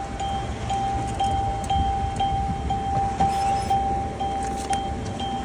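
Drive-up ATM beeping repeatedly, about two beeps a second, over a car engine idling.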